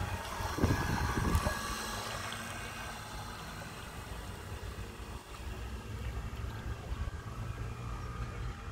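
Wind buffeting the microphone in low rumbling gusts, strongest about a second in, over a faint steady whine from the drive of a radio-controlled model tug under way.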